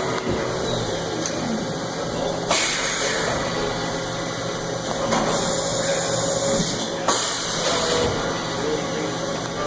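Haas EC-400 horizontal machining center running with a steady hum, broken by three bursts of hissing spray, the first about two and a half seconds in, the longest about five seconds in.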